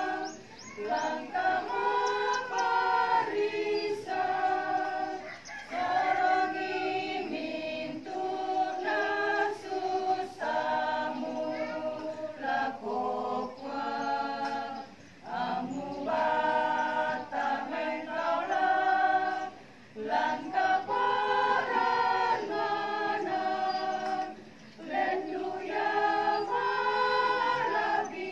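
Elderly mixed choir singing a hymn unaccompanied, several voices in harmony, in long held phrases with short breaths between them.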